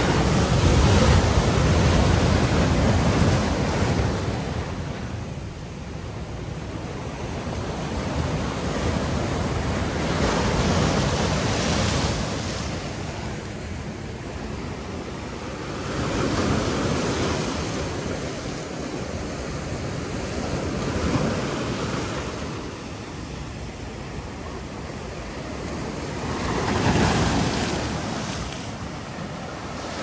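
Sea surf breaking and washing in among boulders on a rocky shore. The rush is loudest in the first few seconds, then ebbs and swells again as each new wave comes in, roughly every five seconds.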